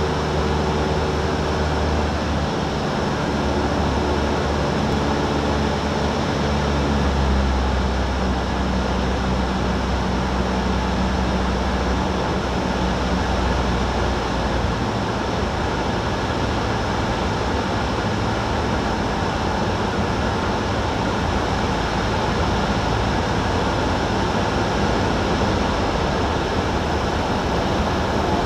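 Engine, propeller and airflow of a light single-engine high-wing aircraft, heard inside the cabin as a steady loud drone on the approach to land. The engine note shifts about seven seconds in, and halfway through its steady hum gives way to rougher noise.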